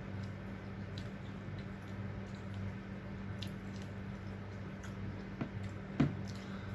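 Close-up chewing and biting of crispy fried fish with rice: wet mouth sounds and scattered small crunches and clicks, with one sharper click about six seconds in, over a steady low electrical hum.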